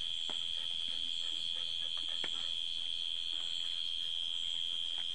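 Night insects singing: a steady, high-pitched drone at one pitch, with a few faint ticks and rustles.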